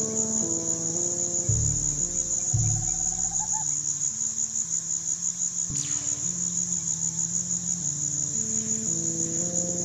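Crickets chirring steadily in a fast high pulsing trill, under background music of slow held low notes that change pitch every half second or so. A falling swoosh sounds about six seconds in.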